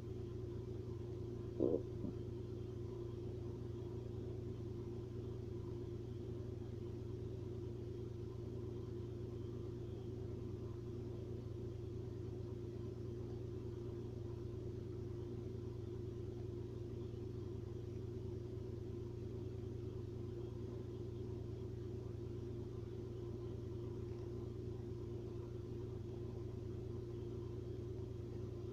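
Stomach growling: a short, pitched gurgle about two seconds in. Under it runs a steady low hum.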